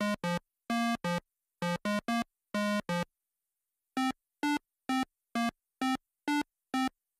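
8-bit chiptune beeps: a quick run of short notes that stops about three seconds in, then after a second's pause a steady pulse of single higher notes about two a second.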